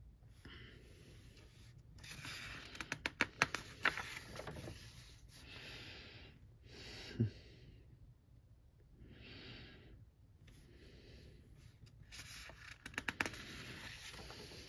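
Paper pages of a paperback colouring book being handled and turned, rustling and crinkling with quick little clicks, twice. Softer hissing swells and one brief low thump come between the two page turns.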